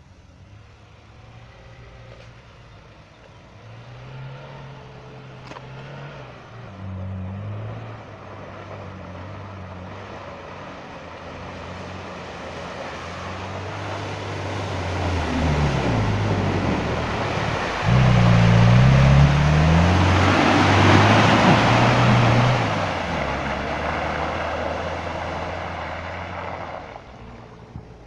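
An off-road car's engine revving hard as it drives through deep mud and water. The pitch rises and falls with the throttle. It grows louder as the car approaches, is loudest with splashing about two-thirds of the way through, then fades as the car drives away.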